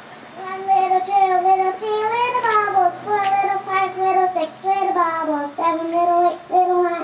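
A young girl singing solo into a microphone through a loudspeaker, with no accompaniment, in phrases of mostly held notes that start about half a second in.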